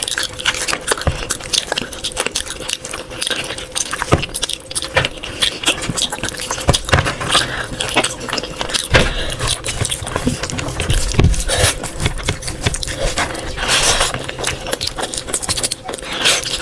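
Close-up eating sounds: irregular wet smacks, clicks and chewing as a person eats rice and curry.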